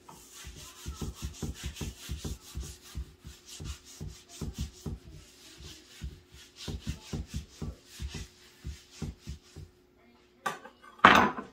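A paper towel rubbed back and forth over a wooden cutting board in quick strokes, about two to three a second, which stop near the end. One brief, louder scrape follows just before the end.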